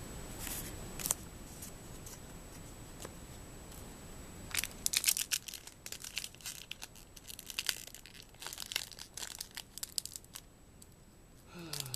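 Foil wrapper of a Magic: The Gathering Dominaria booster pack being torn open and crinkled, a run of crackling starting about four and a half seconds in.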